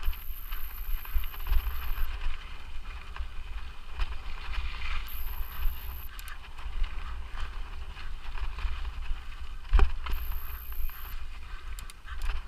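Mountain bike ridden along a forest trail: continuous tyre and trail noise with small rattles and clicks from the bike, a sharp knock about ten seconds in, and wind rumbling on the microphone.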